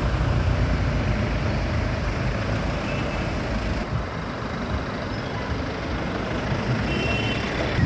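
Steady low rumble of motor vehicle engines, like road traffic.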